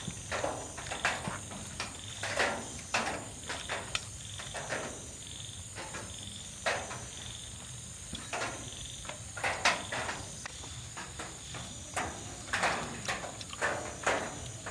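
Eating sounds: irregular bites, chewing and fork and spoon clinks on plates as roasted beef ribs are eaten. A steady, shrill chirping of night insects runs underneath.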